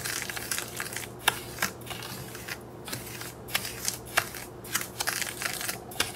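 Coloured sand stirred with a plastic spoon in a stainless steel bowl: gritty scraping and rustling of grains against the metal in uneven strokes, with a few sharp clicks.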